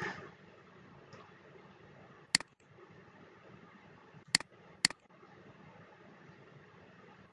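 Three sharp computer mouse clicks over a faint steady hiss: one about two seconds in, then two about half a second apart a little after four seconds.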